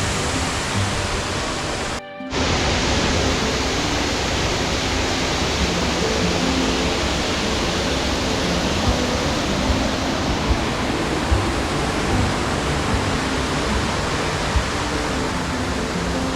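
Waterfall pouring steadily, a dense even rush of water, with soft background music underneath. The sound drops out briefly about two seconds in, then resumes.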